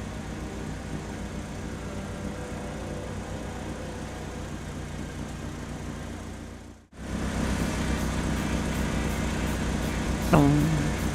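Engine sound effect of a cartoon vehicle running steadily at idle. It cuts out for a moment about seven seconds in and comes back louder, with a few short springy cartoon sound effects near the end.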